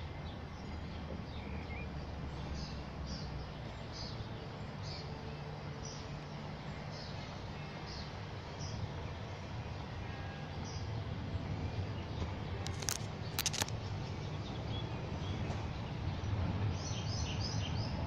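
Outdoor ambience of birds chirping in short, repeated high notes over a steady low rumble. Three sharp clicks come about two-thirds of the way through, and a quick run of chirps near the end.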